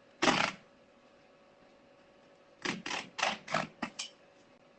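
A kitchen knife sawing through woven igusa rush tatami mat facing: one short cutting stroke near the start, then a quick run of about six strokes about three seconds in.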